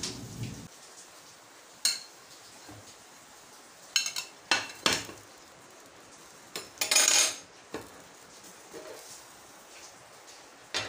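Metal spatula, ceramic plate and nonstick frying pan clinking and knocking together as a fried bean cake is turned out of the pan onto the plate: scattered sharp clinks, a quick cluster of four about four to five seconds in, and a longer scrape about seven seconds in.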